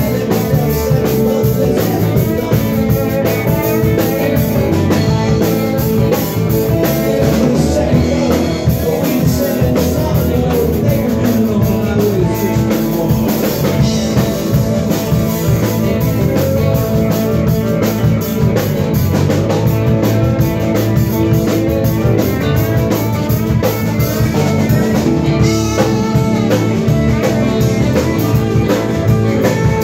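Live rock band playing: drum kit, electric guitars and keyboards, loud and steady throughout.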